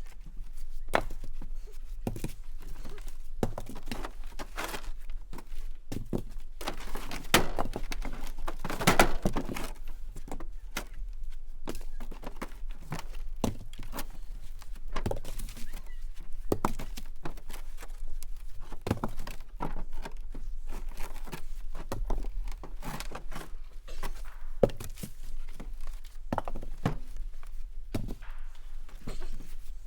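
Firewood rounds of oak and maple being tossed out of a pickup truck bed, landing one after another with heavy wooden thunks at an irregular pace. A denser, noisier run of knocks comes about seven to ten seconds in.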